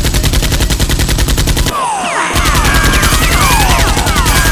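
Rapid automatic gunfire sound effect, a steady rattle of shots. It cuts out for a moment about two seconds in, then resumes with falling whistling sweeps over the shots.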